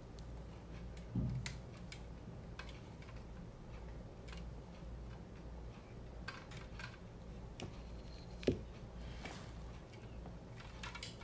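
Scattered clicks and light knocks of plastic parts being handled while a ring light and its phone-holder clamp are adjusted, the sharpest knock about eight and a half seconds in, over a steady low hum.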